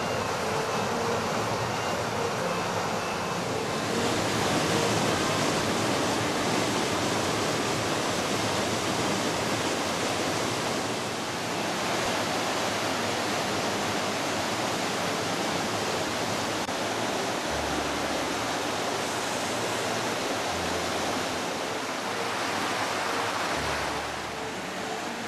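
Alpine torrent and waterfall rushing: a dense, steady noise of falling and tumbling water that shifts a little in tone a few times.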